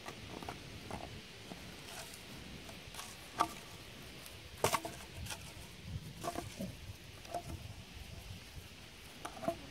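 Empty plastic bottle being bitten and pawed by a puppy: scattered faint crinkles and light taps, a few of them sharper clicks.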